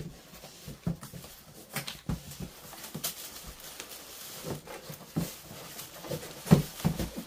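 Cardboard shipping box and its foam packing being handled: scattered knocks, scrapes and rubbing, with a heavier thud about six and a half seconds in.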